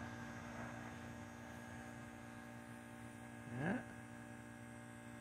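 Steady electrical hum of a 1999 Trane XL1800 R-22 heat pump running in defrost mode, its compressor on while the outdoor fan is stopped. About three and a half seconds in there is one short rising sound, like a brief vocal murmur.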